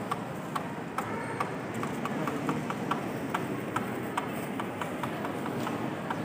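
Murmur of a large crowd packed into a church hall, with many sharp clicks and taps scattered through it, several a second.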